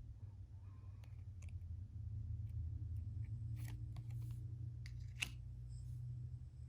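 Pokémon trading cards being handled and shuffled through by hand: soft clicks and short rustles, with one sharper snap about five seconds in, over a steady low hum.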